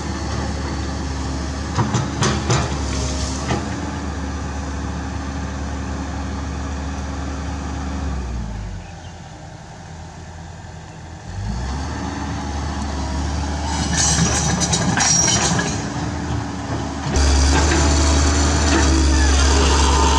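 Komatsu PC130F excavator's diesel engine running steadily, with a few knocks two to three seconds in. About eight seconds in the engine winds down to a low idle for about three seconds, then picks up again, and it is much louder for the last few seconds.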